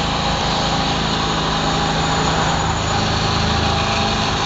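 A small engine running steadily, with an even hiss over it.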